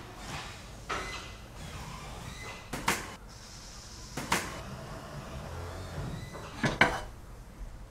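A few sharp knocks over a faint steady background: a quick double knock about three seconds in, a single knock just past four seconds, and another double knock near the end.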